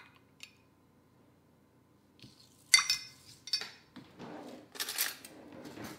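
A metal measuring spoon clinking against glassware: a sharp clink with a short ring about three seconds in, a second one soon after, then scraping and clattering of utensils on glass.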